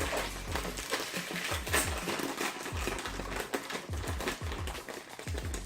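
Background electronic music with a steady beat and a repeating bass line.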